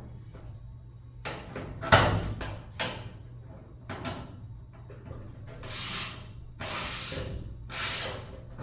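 Knocks and clanks of tools and metal parts being handled during garage-door repair work, the loudest about two seconds in. In the second half come three short rasping noises, under a low steady hum.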